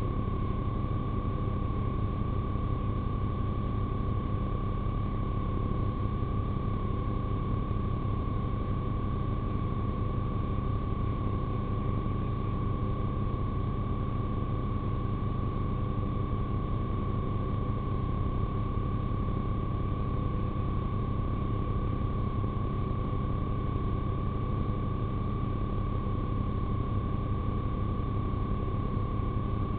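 Police car idling, heard through the in-car dashcam's microphone: a steady low hum with a constant high-pitched whine over it, unchanging throughout.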